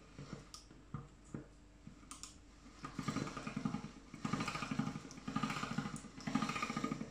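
Hand-cranked stainless-steel pasta machine rolling a piece of ramen dough on its widest setting: a few light knocks as the dough is fed in, then about a second in a steady rattle of the gears and rollers being cranked, in three runs with short pauses.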